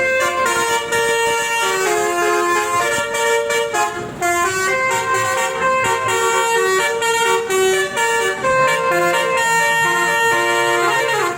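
Basuri V3 'telolet' multi-tone bus horn playing a fast, dance-style tune, its notes stepping quickly from one pitch to the next.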